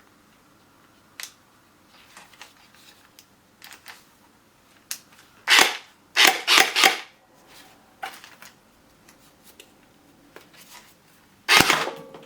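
Electric automatic gel ball blaster firing short bursts: one about halfway through, three more in quick succession just after, and another near the end, with light clicks of handling before them.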